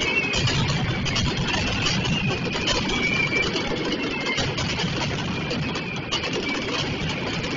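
Mascletà firecrackers going off in a rapid, unbroken string, the bangs merging into a continuous rumble, with a thin whistling tone wavering over it now and then.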